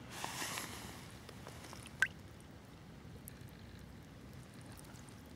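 A short slosh of shallow water at the start, then a single sharp click about two seconds in, over a faint steady murmur of river water.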